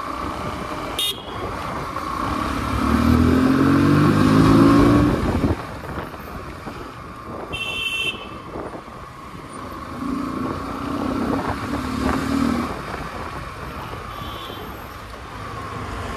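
Bajaj Pulsar NS160's single-cylinder engine pulling through traffic, its pitch rising as it accelerates twice, over steady road and wind noise. Short horn toots sound about a second in and again about eight seconds in.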